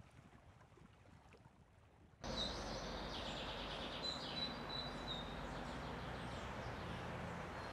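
Quiet at first. About two seconds in, steady outdoor background noise starts, with small birds chirping in short, high notes.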